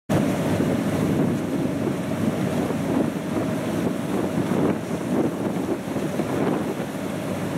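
Wind buffeting the microphone on the open deck of a moving river ferry, over the steady rush of water along the hull and the drone of the ferry's engines, with a faint steady whine running through it.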